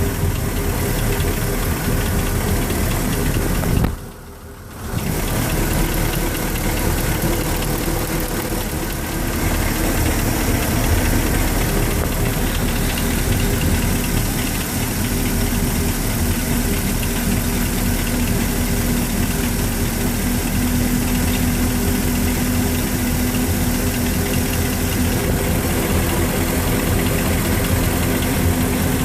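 MerCruiser 350 Mag V8 marine engine running steadily at idle, with the noise the owner warns about as a bad noise. The sound drops out briefly about four seconds in.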